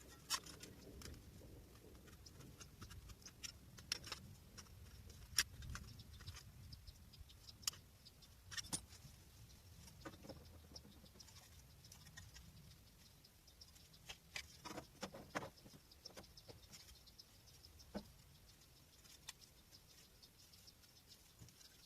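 Faint, irregular light clicks and taps, a few every several seconds with a quick cluster about two thirds in, from slow hand work rather than any power tool.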